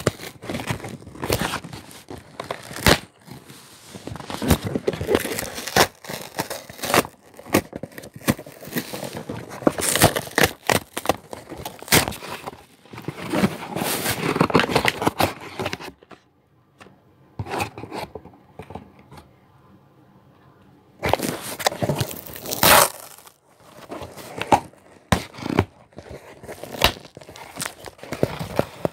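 Packaging being handled, torn and crumpled: irregular crinkling and tearing with sharp clicks and knocks. It goes quiet for about five seconds just past the middle, then starts again.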